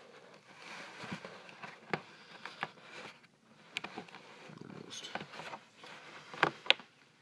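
Plastic clicking and rubbing of a Miller Digital Elite welding helmet's lens-holder frame being pushed back into its side clip, with two sharper clicks close together near the end.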